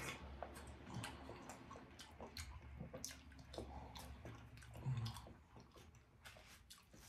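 Faint biting and chewing of a fresh pear: many small crisp clicks and crunches. A brief low hum about five seconds in.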